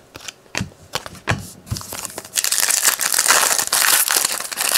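A few light clicks and taps of cards being handled, then from about two seconds in a loud, continuous crinkling of a foil trading-card pack wrapper being torn open.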